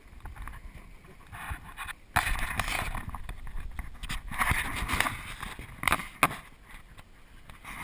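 Camera handling noise: rubbing and rustling against the action camera as it is moved about, getting louder about two seconds in, with a few sharp knocks.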